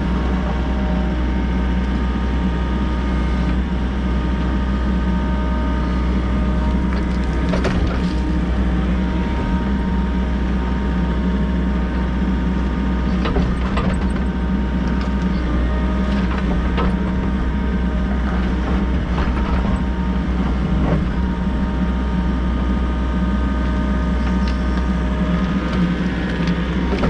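Volvo EC60E excavator's diesel engine running steadily under work, with a few short clicks and knocks scattered through it.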